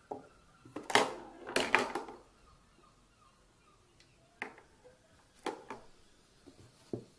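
Balls on a toy tabletop pool table being knocked by a cat's paw: a quick run of loud clacks and knocks about one to two seconds in, then a few single knocks later.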